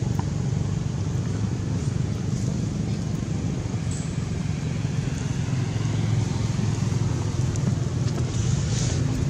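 Steady low rumble of motor vehicles running.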